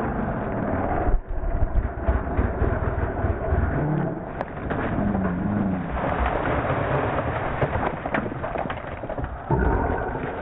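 Two-stroke dirt bike being ridden over rough ground, its engine rising and falling under heavy wind noise, with repeated knocks and bumps.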